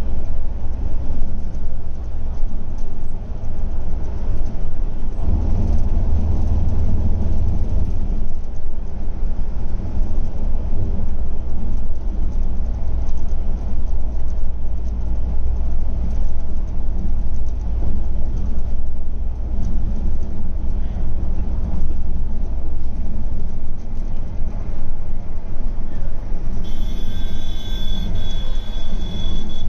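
Volvo B11R multi-axle coach cruising at highway speed, heard from the front of the cabin: a steady low drone from its rear-mounted six-cylinder diesel mixed with tyre and road noise. The lowest part of the drone drops a little after about 24 seconds, and a steady high tone joins near the end.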